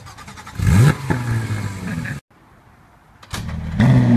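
A Porsche 911 GT3's flat-six is cranked by the starter and catches with a sharp rising flare, then settles to a steady idle. After a short quieter gap, a McLaren P1's twin-turbo V8 cranks and fires up near the end with a loud flare that falls in pitch as it settles.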